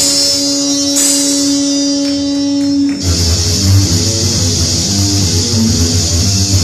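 Heavy metal band playing live: a held note with cymbal crashes, then about three seconds in the full band comes in with drums and bass under a steady cymbal wash.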